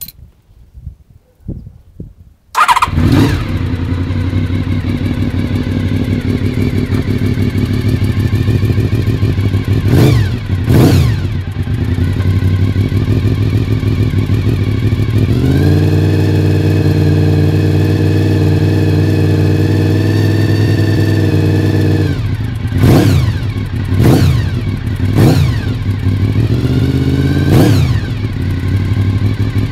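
Honda VFR750F's 90-degree V4 engine, breathing through a Yoshimura aftermarket silencer, fires up about two and a half seconds in and settles into idle. It is blipped twice, then held at a steady higher rev for several seconds, then blipped sharply four more times.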